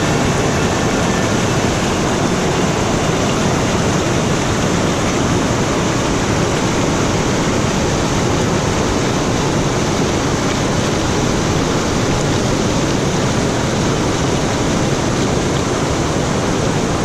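Waterfall: loud, steady rushing of falling water.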